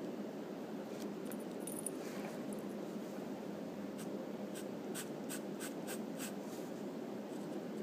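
Wooden pencil sketching on paper: short scratchy strokes, a cluster about a second in, then a run of about seven quick strokes from about four seconds in.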